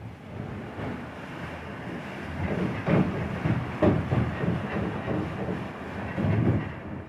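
Water-powered sawmill running and sawing a log: a steady mechanical rumble and clatter with irregular heavier knocks.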